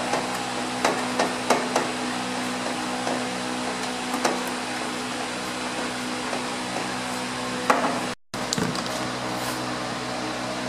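A few light knocks and clicks as bolts, washers and a plastic electric-fan shroud are handled and fitted against an aluminium Fluidyne radiator, over a steady background hum.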